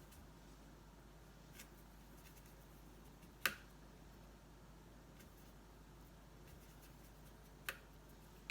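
Near silence: room tone, broken by three short light clicks, the sharpest about three and a half seconds in.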